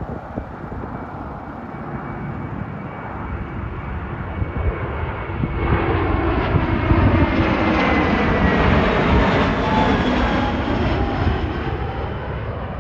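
Airbus A320-200 jet airliner passing low overhead on final approach to land. The engine noise builds to its loudest about seven to ten seconds in, with whining tones that fall in pitch as it goes by, then eases off.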